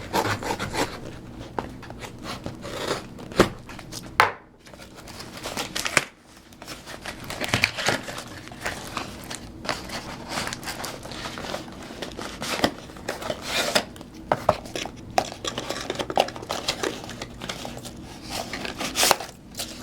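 Packaging crinkling and rustling as a tightly stuck box is worked out of a shipping box, with a few sharp knocks along the way.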